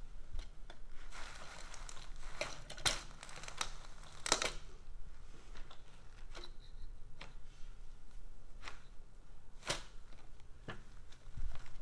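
Lever-action carpet stretcher being set down and worked on carpet. Its metal parts give a series of sharp clacks, with rustling and scraping of the carpet pile in between.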